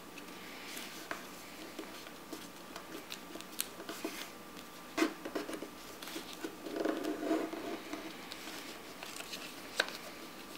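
A sheet of origami paper being folded and creased by hand on a tabletop: scattered light taps and crinkles, with a longer rustle of paper about seven seconds in.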